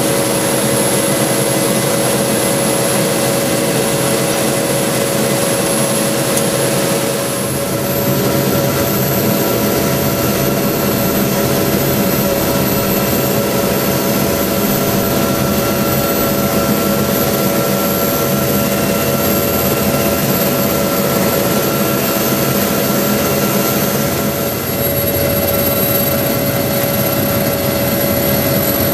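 Helicopter cabin noise heard from inside the cockpit: a steady turbine whine over the rotor and transmission drone. A high whine steps up in pitch about eight seconds in and drops back down near the end.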